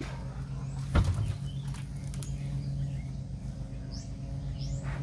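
A plastic whitewater kayak being tipped up and stood on its end: one sharp thump about a second in, then a few lighter knocks. A few bird chirps near the end, over a steady low hum.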